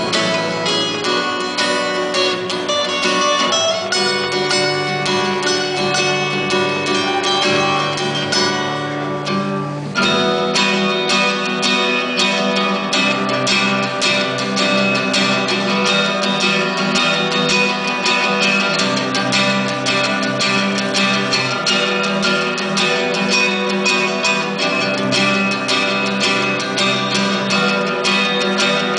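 Two acoustic guitars playing a duet live, picked and strummed notes in a steady rhythm. About ten seconds in the playing dips briefly, then comes back in fuller with a new strummed section.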